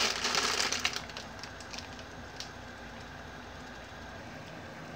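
Plastic instant-noodle packet crinkling as it is handled for about the first second, then the steady faint noise of a gas stove burner under a pan of water heating toward the boil, with a few faint ticks.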